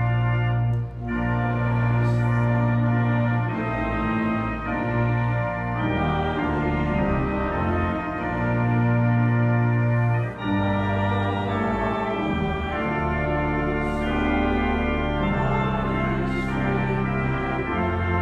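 Organ playing slow, sustained chords that change every second or two. There are two brief breaks between phrases, about a second in and about ten seconds in.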